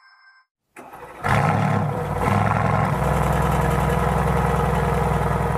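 A car engine cold-starting: a brief crank, the engine catches about a second in with a rev flare, then settles into a steady idle.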